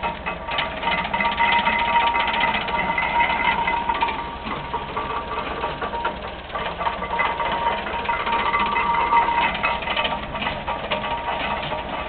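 1924 Ann Arbor Model 40 stationary hay press running, its gears and mechanism clattering rapidly and steadily over a constant whine, with a tractor engine driving it by belt.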